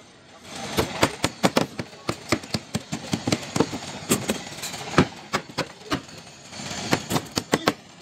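Claw hammer striking nails into plywood shuttering sheets on roof formwork: a quick run of sharp, uneven blows, several a second, starting about half a second in.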